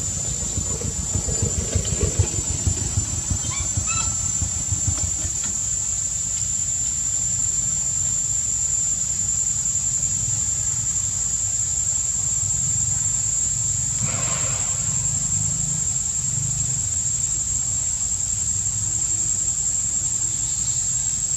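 Steady high-pitched insect drone from crickets or cicadas, over a low rumble, with a few short faint chirps about four seconds in.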